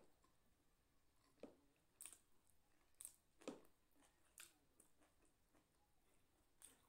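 Faint chewing: a person eating, with about six soft mouth clicks and smacks scattered through a near-quiet room.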